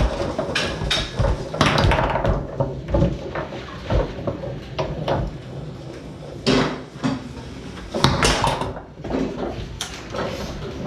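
Tornado foosball table in play: irregular sharp clacks and knocks of the ball being struck by the players' men and hitting the table walls, with the rods knocking.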